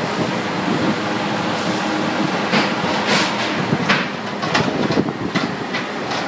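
Steady machinery noise in a fish processing plant, with a run of sharp knocks and clatters from about two and a half seconds in.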